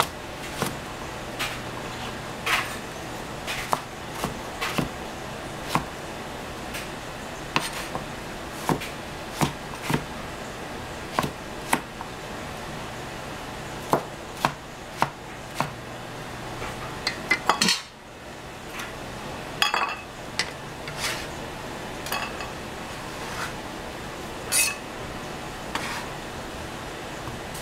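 Wide Chinese cleaver chopping yellow crookneck squash on a plastic cutting board: sharp, irregular knocks of the blade striking the board, about one a second, with a brief flurry of clatter about two-thirds of the way through as the chunks are moved into a bowl.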